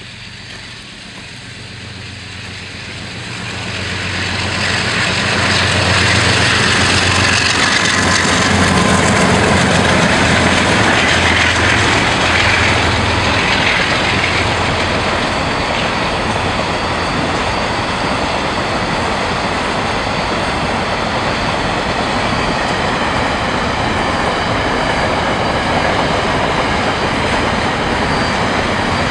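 An empty coal train hauled by DXC-class diesel-electric locomotives passes close by. The diesels' engine drone builds over the first few seconds and is loudest in the first half, then the empty steel coal hopper wagons roll past with a steady, even rolling noise of wheels on rail.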